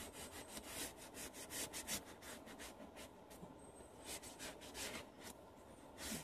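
Foam applicator pad rubbing leather conditioner into a leather car seat: quick back-and-forth strokes, several a second, pausing briefly a couple of times.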